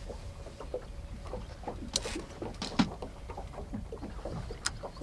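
Low, steady rumble of wind and water around a small fishing boat, with a few sharp clicks and knocks of a rod and reel being handled ahead of a cast. The loudest knock comes a little before three seconds in.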